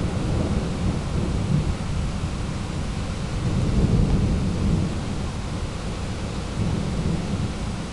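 Rolling thunder rumbling low, swelling to its loudest about halfway through and easing off near the end, over a steady hiss.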